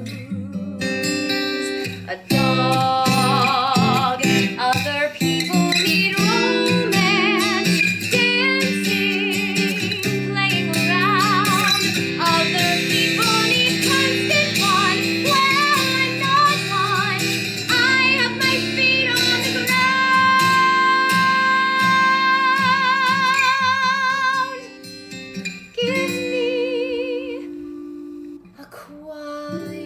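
A woman singing a ballad with vibrato over a recorded acoustic guitar accompaniment, holding one long note about twenty seconds in, then the guitar carrying on more quietly near the end.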